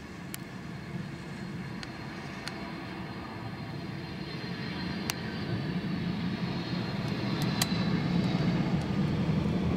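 A Boeing 767 airliner's jet engines running as it lands and rolls out along the runway, a steady rumble with a faint high whine that grows louder through the second half. A few short clicks sound over it.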